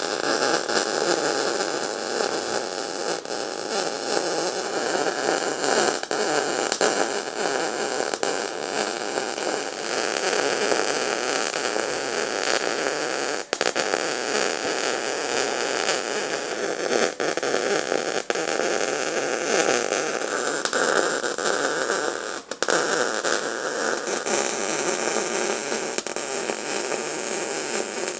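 Arc welding a steel panel: a steady crackling hiss from the welding arc, broken by two brief stops between beads, about a third of the way in and again past the middle.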